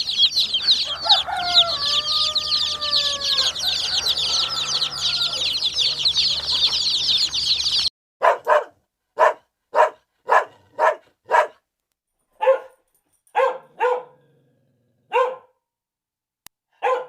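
A brood of chicks peeping constantly and high, with a few lower clucking calls among them. After a sudden cut about eight seconds in, a dog barks in short single yaps, about a dozen times with pauses between.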